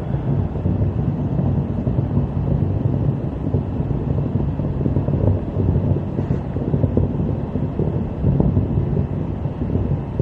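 Wind buffeting the phone's microphone: a loud, steady, low rumble that keeps fluctuating.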